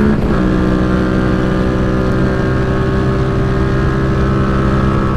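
Yamaha MT-07's parallel-twin engine pulling along at a steady road speed. Its pitch dips a little shortly after the start, then holds even.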